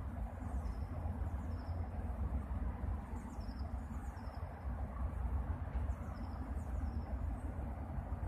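Steady low outdoor rumble, like wind on the microphone or distant city noise, with faint high chirps of small birds repeating in the background.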